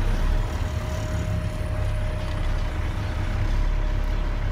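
Tri-axle dump truck's diesel engine running, a steady low rumble heard from inside the cab, with a thin steady whine over it that fades near the end.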